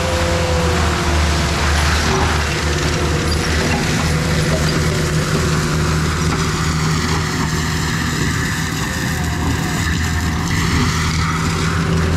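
ASV RT-120 Forestry tracked mulcher running steadily as it works through brush, its diesel engine holding a constant drone.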